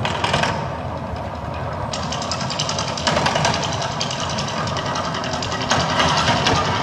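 The Mirage volcano show's sound effects: a loud, steady rumbling din with rapid clattering that grows denser about two seconds in and again near the end.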